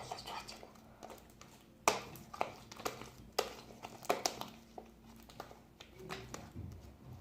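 Slime being handled and squeezed by hand: scattered sharp clicks and short squelches, with quiet crinkling between them.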